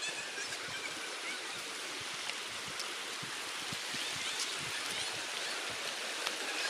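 River water running steadily, with a few short, faint high chirps around the middle.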